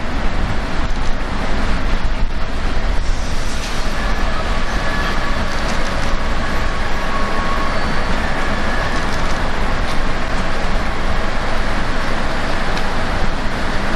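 A train moving through the station: a steady rolling rumble, with faint high whining tones in the middle.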